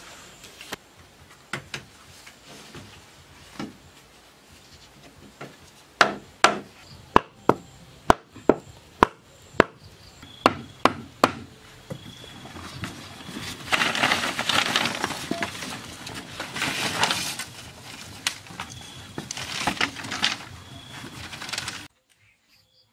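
A quick run of about a dozen sharp wooden knocks, roughly two a second, from wooden poles being worked. These are followed by several seconds of rough rustling noise that cuts off suddenly near the end.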